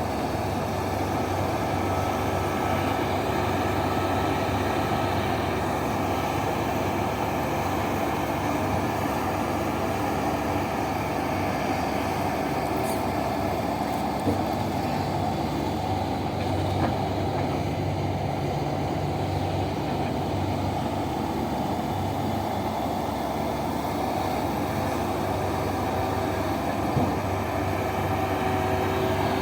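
Heavy diesel mining machinery running steadily with a low, even hum, with a few faint knocks along the way.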